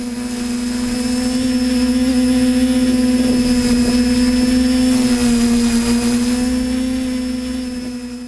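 A steady mechanical drone at one fixed pitch, like a motor running. It swells over the first couple of seconds, sags slightly in pitch about five seconds in, and fades near the end.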